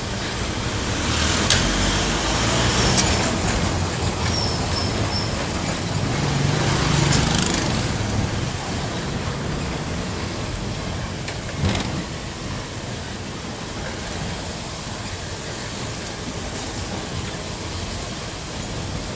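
Road and engine noise of a moving vehicle heard from inside the cabin, a steady rush that is louder over the first several seconds and then eases, with a sharp knock about twelve seconds in.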